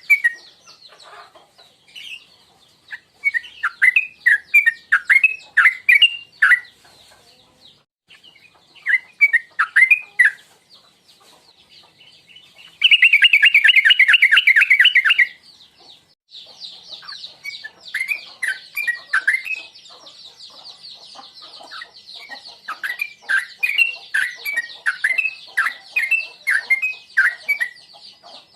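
Yellow-vented bulbul (trucukan) singing: short phrases of quick, bubbling notes separated by brief pauses, with one fast, dense trill about halfway through that is the loudest part. Over the second half a steady high buzz sits behind the song.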